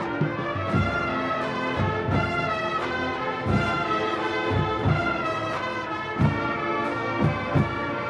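Marching band playing: the brass section holds full chords over drumline and bass drum hits, with a few heavy accented hits near the end.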